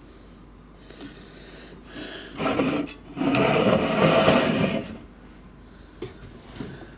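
Aluminium beer cans being slid together across a countertop: a short scrape about two and a half seconds in, then a louder scrape lasting about a second and a half. A few light knocks follow near the end.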